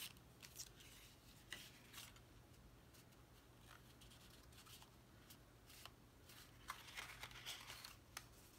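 Faint handling of paper cardstock: scattered soft taps and clicks, and a brief rustle of paper being rubbed near the end, over a low steady hum.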